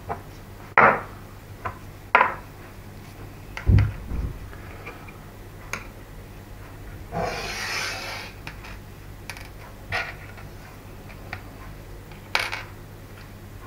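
Small metal silencer parts of a model glow engine being handled and set down on a hard worktop: a handful of sharp clicks and knocks, one with a low thump about four seconds in, and a scraping rub lasting about a second around seven seconds in.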